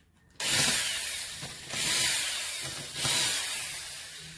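Cordless drill-driver spinning out bolts on a Suzuki Hayabusa cylinder head in three short runs, each dying away as the trigger is let off.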